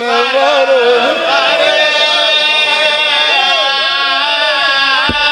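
A man's voice chanting a drawn-out mourning lament over a microphone and PA system, holding long notes that bend in pitch.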